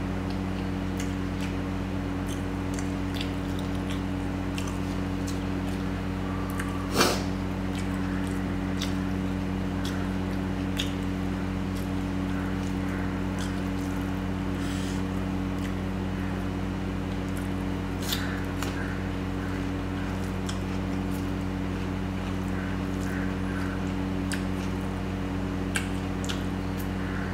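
Close-miked eating sounds of mutton curry and rice: chewing, wet squishes and small mouth clicks, with one sharp louder click about seven seconds in. A steady low hum runs underneath.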